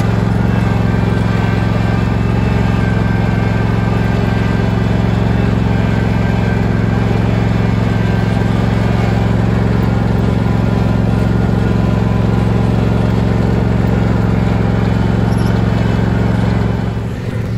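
John Deere riding lawn tractor's engine running steadily under load while it tows a weighted pallet drag over loose dirt, heard close up from the machine. The drone drops in level about a second before the end.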